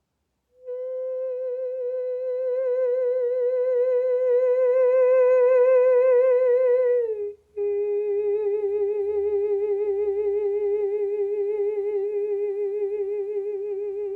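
A woman's voice sustaining two long held notes with a steady, even vibrato, as in sound-healing vocal toning. The first note slides down at its end, and after a short breath about seven seconds in a slightly lower note is held.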